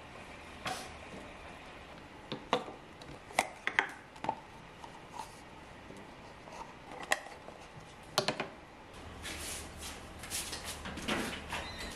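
Light household handling noises: scattered sharp clicks and taps of small objects being picked up and set down, with soft rustling between them.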